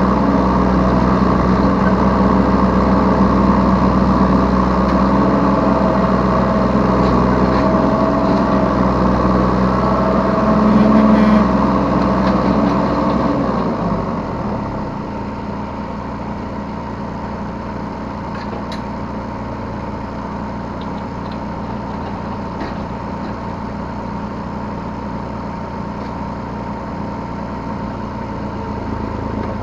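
Yanmar B3 Sigma 3-tonne mini excavator's diesel engine running under working load, swelling briefly near the middle, then dropping about halfway through to a quieter, steady run.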